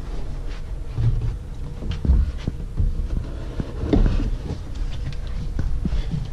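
Dull thumps of footsteps and handling on a handheld camera's microphone as it is carried along a carpeted hallway, about one thud a second, with a few faint clicks.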